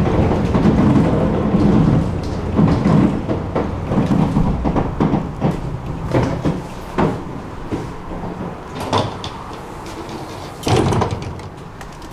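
Tram running on its rails, its low rumble dying away as it slows, with scattered clunks and knocks from about five seconds in.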